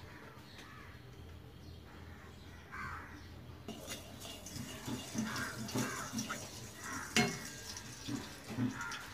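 Kitchen sounds of cooking at a stove: a metal utensil clinking and scraping against a pan, with a steady hiss that starts suddenly a little under four seconds in.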